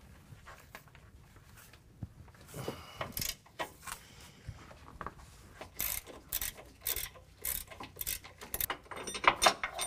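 Hand ratchet on a long extension with an 18 mm socket, clicking as it loosens a truck's frame body mount bolt. Faint at first, then a run of ratcheting strokes about two a second from about three seconds in, loudest near the end.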